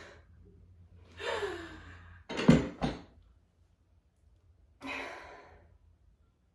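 A woman sighs with a falling pitch, then an office chair is set down on the floor with two heavy thumps, then she gives another long breathy sigh.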